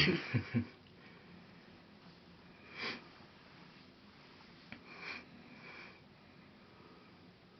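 A person sniffing, twice, about two seconds apart.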